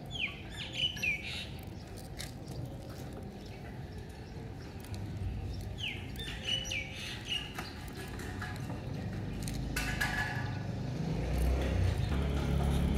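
Birds chirping: two short runs of quick, high, falling chirps, one near the start and one about six seconds in. A low steady hum grows louder near the end.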